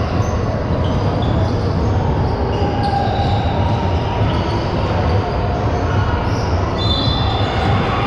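Basketball being bounced on a gym floor over a steady, loud gym din, with a few short high-pitched squeaks, the longest about seven seconds in.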